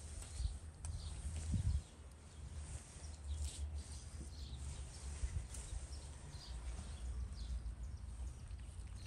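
Grilled kebab meat pushed off a metal skewer onto a plate, with soft handling noises and a dull thump a second and a half in. Small birds chirp now and then over a low, steady outdoor rumble.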